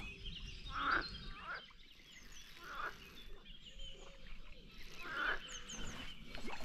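Waterbirds calling: a few short calls spaced a couple of seconds apart, with faint high chirps of small birds in the background.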